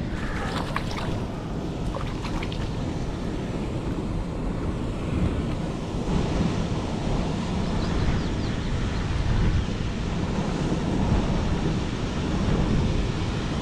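Steady rushing of a waterfall and fast river water pouring into the pool, an even noise heaviest in the low range.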